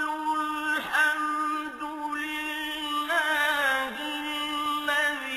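Melodic Quran recitation in Arabic: a single reciter chanting long, drawn-out held notes, with ornamented pitch glides between them.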